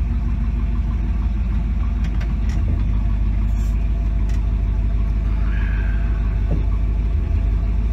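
The orange gasser drag car's engine running steadily at low revs without revving, a deep rumble heard from inside the cab as the car starts to roll.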